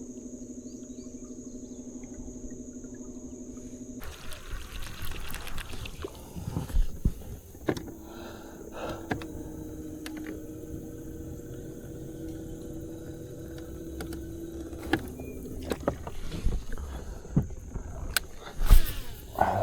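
A small boat motor hums steadily and stops about four seconds in. Knocks and clatter in the boat follow, and a second steady hum runs through the middle. Insects keep up a steady high-pitched buzz throughout.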